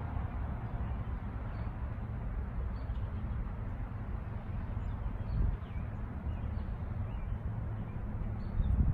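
Outdoor lakeside ambience: a steady low rumble of wind on the microphone, with faint scattered bird chirps and a couple of dull bumps, one about five and a half seconds in and one near the end.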